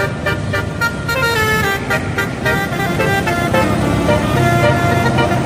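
Bus telolet horn playing a quick tune of stepped, rising and falling tones, over the low rumble of the bus engine.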